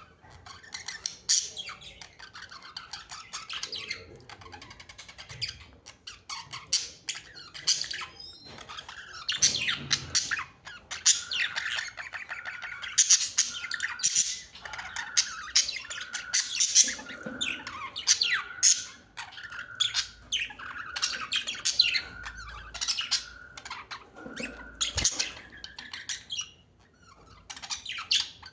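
Several birds chirping and squawking in a rapid, overlapping chatter. Through the middle a lower short note repeats over and over.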